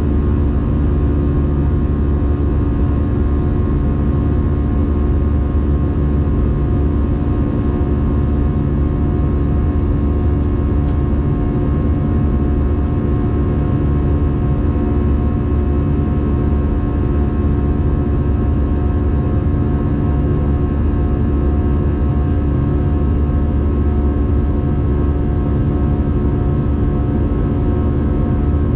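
Steady in-flight cabin noise of an Airbus A320 airliner: a constant deep engine drone and rush of air, with several steady hum tones running through it.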